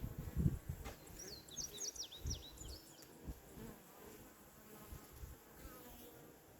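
Bees buzzing faintly and continuously, with a short run of high chirps about a second in.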